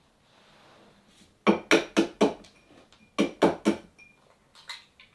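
Sharp knocks and clinks of kitchenware: four quick strikes, then three more about a second later, and a couple of lighter taps near the end.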